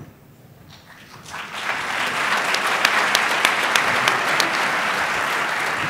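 Audience applauding, starting about a second in and quickly growing to steady clapping.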